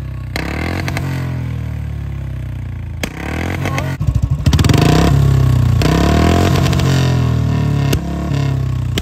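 Royal Enfield Bullet single-cylinder engine running at a steady idle, then revved up about four seconds in and held at higher revs for several seconds before easing off near the end.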